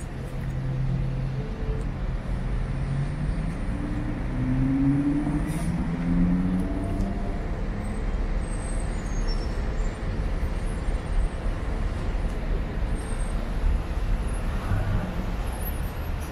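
Street traffic: a steady low rumble of passing vehicles, with one engine's note rising over the first several seconds as it speeds up.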